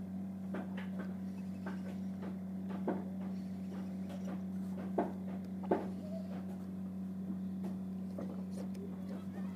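Spinning reel being cranked, giving soft irregular clicks and two sharper clicks about halfway through, over a steady low hum.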